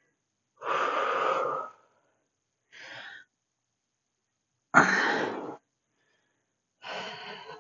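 A woman's forceful exhaled breaths during dead bug core reps: four short puffs about every two seconds, the first and third loud and the second and fourth softer.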